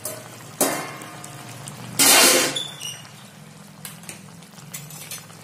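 A metal lid is taken off a wok of simmering eggplant curry: a sharp knock about half a second in, then a louder, brief clatter of metal cookware around two seconds in. The curry bubbles and hisses quietly underneath.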